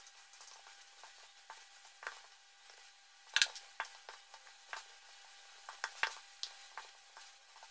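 Hands kneading a stiff rice-flour and besan dough in a metal bowl: irregular soft squishes and light clicks of hands and dough against the bowl, the sharpest about three and a half seconds in.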